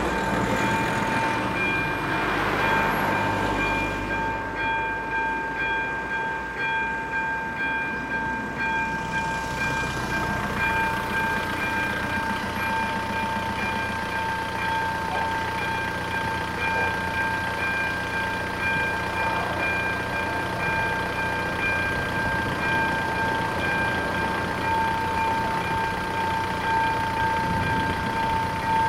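AŽD ZV02 electronic level-crossing bell ringing continuously while the crossing warning is active, a high repeating ding with a steady pitch. Car engines run underneath it.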